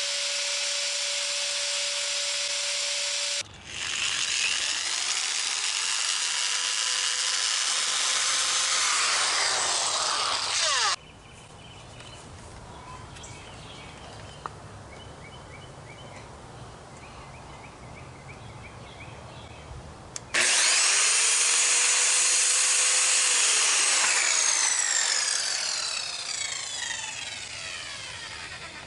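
Electric power tool cutting into a hickory limb, a harsh grinding-sawing noise with a motor whine, in two long runs with a quieter stretch of low hum between them. Near the end the motor winds down, its pitch falling.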